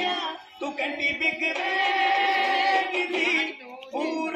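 A song with a singing voice, holding a long wavering note in the middle, with short breaks just after the start and near the end.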